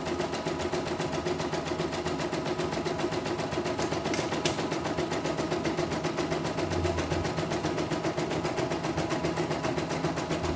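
CNY E900 portable embroidery machine stitching a design, its needle going at a fast, even, steady rhythm. It is running smoothly in a test stitch-out, with no trouble.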